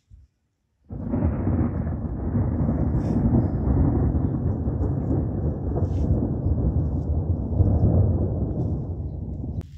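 Thunder rumbling: a loud, low roll that starts suddenly about a second in and carries on fairly evenly, then cuts off abruptly near the end.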